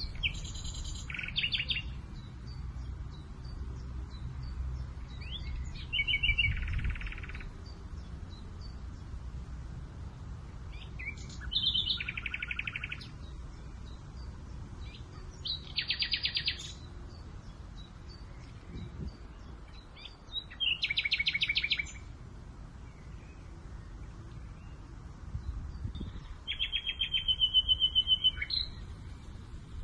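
A songbird singing short, fast trilled phrases, six in all, one every four to five seconds, with a low wind rumble underneath that is heavier at the start.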